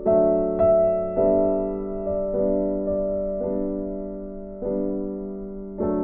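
Slow background piano music: notes and chords struck every half second to a second and left to ring and fade.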